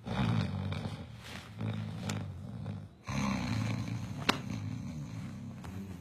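A man snoring loudly: three long, rattling snores one after another, with a sharp click about four seconds in.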